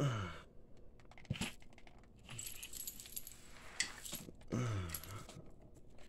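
Bagless Hoover vacuum's plastic dirt cup being emptied onto carpet: sharp clicks from the cup and its latch, and a patch of rattling as dirt and small beads spill out in the middle. There are two short falling tones, one at the start and one just before the end.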